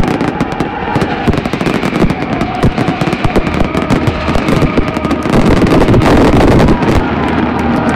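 Fireworks grand finale: a rapid barrage of aerial shell bursts going off in quick succession, thickening into a dense, nearly unbroken volley about five seconds in.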